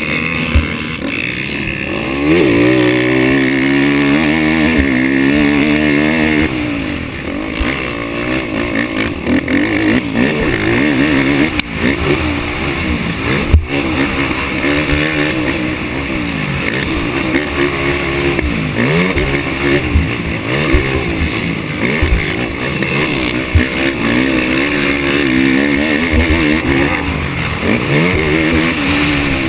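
Racing ATV engine revving hard, its pitch climbing and dropping again and again as it accelerates and lets off through the gears. A few sharp knocks cut through it, the loudest about halfway in.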